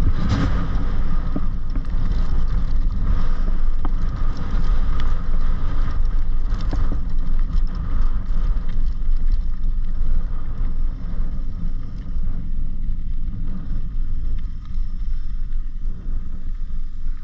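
Wind rushing over an action camera's microphone with the rumble of a downhill mountain bike's knobby tyres on a dry dirt and gravel trail, broken by frequent clicks and clatters from bumps. The rush eases somewhat near the end as the bike slows onto flat gravel.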